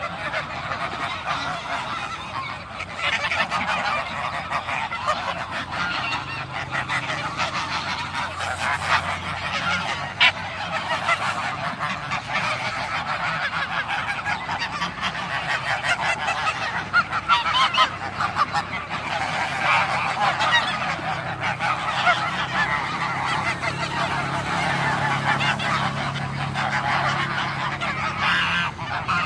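A flock of domestic geese honking continuously in a dense, overlapping clamour as they crowd the fence to be fed.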